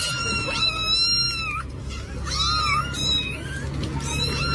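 A cat meowing repeatedly: several high, drawn-out meows, the first about a second long, with a steady low hum underneath.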